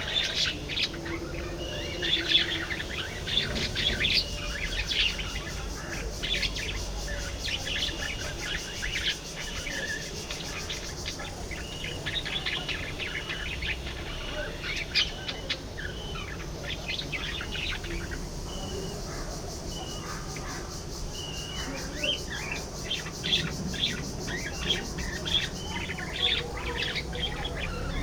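A flock of budgerigars chirping and chattering continuously, with many short overlapping chirps and trills.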